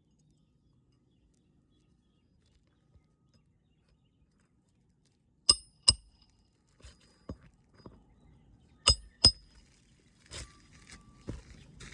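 Hammer driving roofing nails through shingles, each blow ringing sharply. After a quiet stretch come two loud strikes about half a second apart, a few lighter taps, another loud pair a few seconds later, then more light taps.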